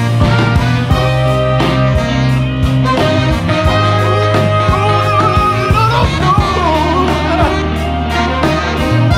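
Recorded music with guitar and a steady beat over a sustained bass. A held melodic line wavers in the middle.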